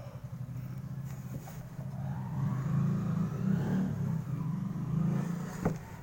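A motor vehicle's engine running, growing louder for a few seconds and easing off near the end, with a short click just before it fades.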